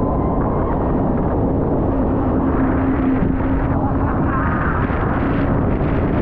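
Heavy wind rumble buffeting the camera microphone at speed, with the steady drone of a jet ski engine underneath.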